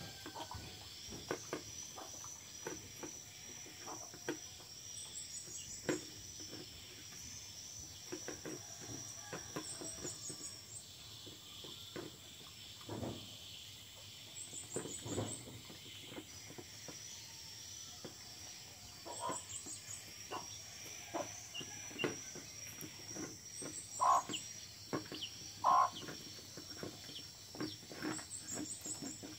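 A dog eating from a plastic bowl: irregular short chewing clicks and knocks, over a steady high trill of crickets.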